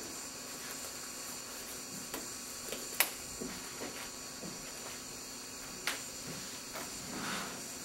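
Classroom room tone with a steady hiss, broken by two sharp clicks about three seconds apart and a few faint small knocks.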